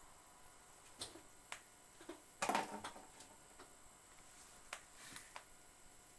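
Faint scattered clicks and taps, with a short cluster of rustling clicks about two and a half seconds in, over a steady low hiss: handling noise picked up by the digital rifle scope's own microphone.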